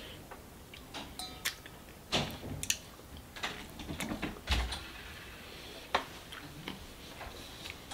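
Licking honey off sticky fingers: a string of wet lip smacks and small mouth clicks, scattered and irregular.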